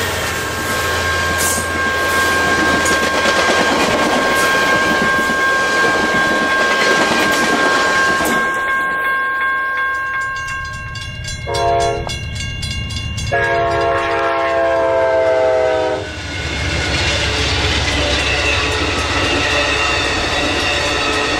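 Commuter train's bilevel coaches rolling past at speed, with a steady high whine over the rumble. Then a train horn sounds one short blast and one longer blast. An Amtrak passenger train's locomotives and Superliner cars then rumble past with wheel clatter.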